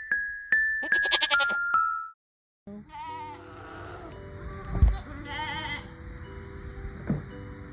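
A short chiming jingle of bell-like notes ends about two seconds in. After a brief gap, goats bleat twice in wavering calls over soft background music, with two dull low thumps, the first and louder just before the second bleat.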